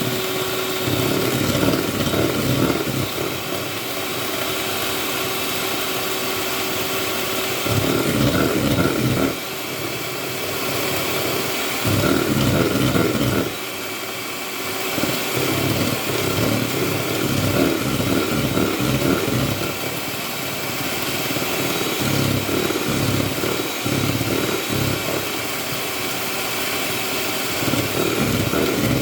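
Electric mixer running at maximum speed, beating egg yolks with sugar into kogel mogel. Its loudness rises and falls every few seconds as the beaters move through the bowl.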